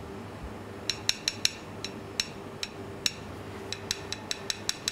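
About fifteen light, irregular clicks of a small metal spoon touching the plate as dots of sauce are dabbed on, coming faster near the end, over a steady low kitchen hum.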